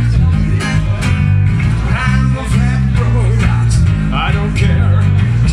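Acoustic guitar and electric bass guitar playing an instrumental passage together, with the bass notes loudest.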